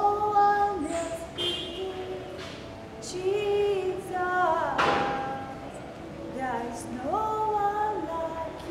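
A woman singing a worship chorus alone, with long held notes and slides up and down between them.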